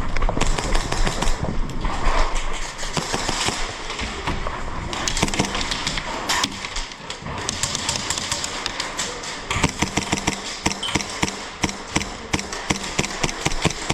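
A busy run of sharp clicks and knocks from an airsoft game, coming faster and more evenly in the second half: airsoft guns firing and gear and footsteps moving.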